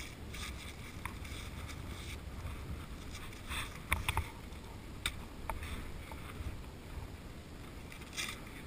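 Wind buffeting the microphone as a steady low rumble, with a few sharp clicks and knocks around the middle and one near the end as the camera and the ski it sits by are handled.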